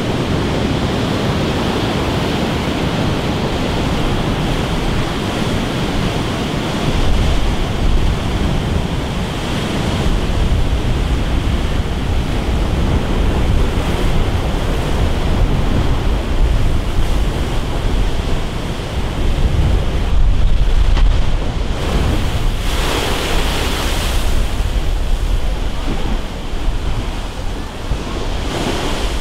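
Storm surf breaking and crashing against a seawall, a continuous rushing wash of water, with strong wind buffeting the microphone. The wind rumble is heaviest about two-thirds of the way through, followed by a louder crash.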